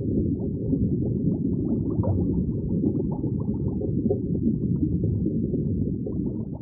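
Underwater ambience sound effect: a steady, muffled low rumble with faint scattered bubbling ticks, cutting off suddenly at the end.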